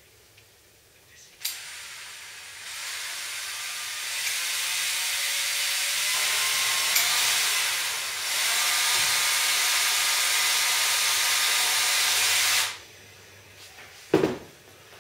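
Small power drill running for about eleven seconds, getting louder in steps a few seconds in, dipping briefly partway, then stopping abruptly, as it drills out a hole for a U-bend wire linkage. A sharp knock follows near the end.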